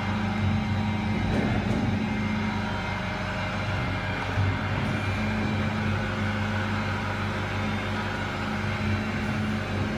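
CNC saw-blade sharpening machine running with a steady electric hum over a constant machine noise.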